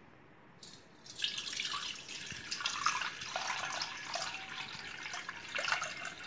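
Sugar water poured in a stream through a plastic mesh strainer into a steel pot, splashing and bubbling as it fills. The pouring starts about a second in.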